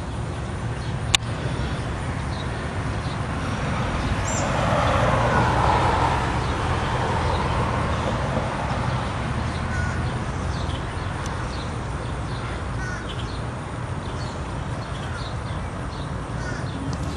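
Outdoor ambience: a steady low rumble with a broad swell that rises and fades about four to seven seconds in, a single sharp click about a second in, and a few short bird calls.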